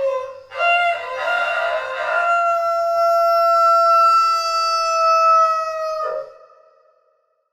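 Rooster crowing once: a short opening note, then a long cock-a-doodle-doo whose last note is held steady for about four seconds before it breaks off and fades away.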